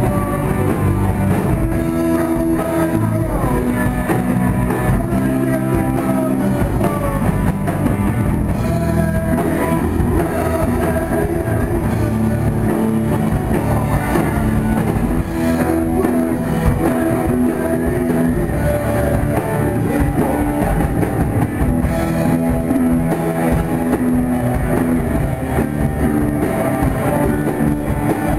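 A rock band playing live: electric guitars, a drum kit and keyboard, at a loud, even level throughout.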